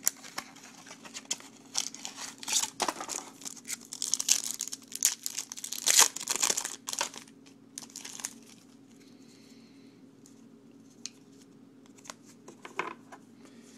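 Foil wrapper of a trading-card pack being torn open and crinkled, loudest about six seconds in. After about eight seconds it gives way to a few light clicks and rustles of the cards being handled.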